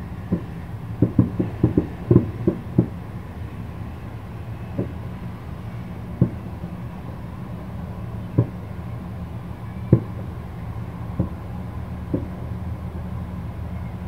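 Distant aerial firework shells bursting as dull booms: a quick run of about eight in the first few seconds, then single booms every second or two, over a steady low background rumble.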